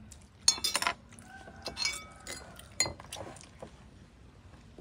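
Tableware clinking during a meal: utensils knocking against bowls and dishes in a few sharp clinks. The loudest clink comes about half a second in, and a struck dish rings briefly around the two-second mark.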